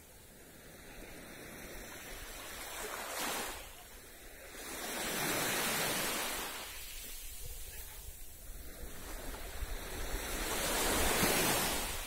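Small waves on a calm sea breaking gently on a sandy beach and washing up the shore. The surf hiss swells and fades, loudest twice, about five seconds apart.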